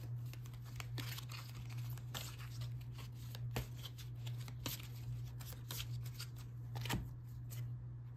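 Oracle cards being shuffled and handled by hand: soft, irregular rustles and clicks of the cards, a few louder ones in the middle, over a steady low hum.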